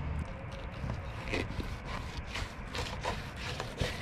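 Fillet knife scraping along the tough scaled skin of a tripletail fillet on a plastic cutting board as the meat is cut from the skin, in a run of short, irregular scrapes.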